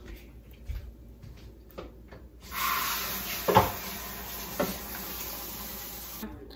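Pot of chicken soup simmering on the stove: a steady hiss comes in suddenly a couple of seconds in and cuts off just before the end, with two light knocks against the pot in between. Faint clicks come before the hiss.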